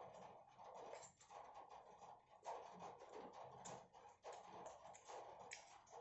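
Faint clicking and scraping of plastic spoon and fork against food in a cardboard takeout box, with many small quick ticks.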